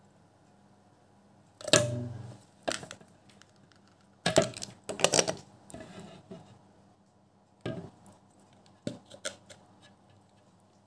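Plastic knocks and clacks from the StylPro Squeeze sponge cleaner's lid and plunger being worked over its jug. A heavier knock comes about two seconds in, then a quick cluster of clacks around four to five seconds, then a few lighter clicks later on.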